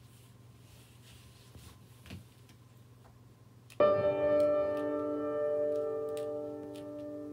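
Quiet room tone until nearly four seconds in, when a single piano chord is struck and left ringing, slowly fading away.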